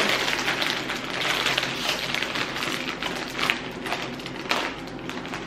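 Snack packaging crinkling and rustling as it is handled, a continuous crackle with a couple of sharper crackles in the second half.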